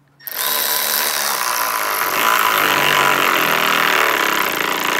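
Milwaukee M12 cordless 3/8-inch ratchet running under load as it drives a long screw down into a wooden beam. It starts a moment in and runs steadily, its motor and gears making a loud whine with a constant high tone.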